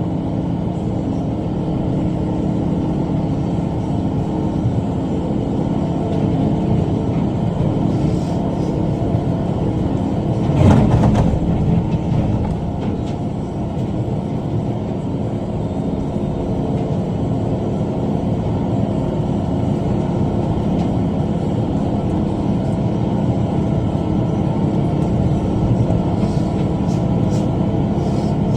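Tractor engine running steadily under load while pulling a rotary cutter (bush hog) through brush. About eleven seconds in there is a brief louder noise over it.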